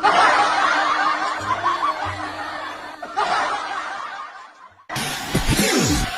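Laughter from several people, a chattering wave of chuckles that swells again about three seconds in, then fades out. Electronic music with a heavy beat cuts in about five seconds in.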